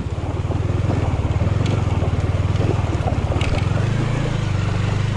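Motorcycle engine running steadily at low revs, a fast even putter, with a brief rise in revs about four seconds in.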